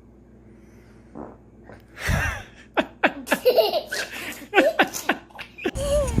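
A baby's short, low fart about two seconds in, followed by a run of short, high-pitched peals of baby laughter.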